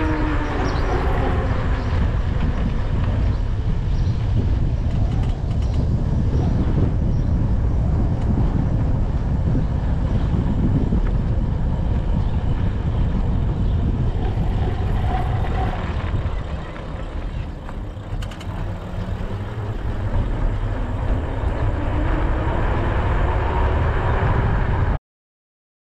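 Wind rushing over an action camera's microphone while riding an e-bike along asphalt, with tyre noise underneath. A faint whine slides down in pitch at the start and rises again near the end. The sound cuts out abruptly just before the end.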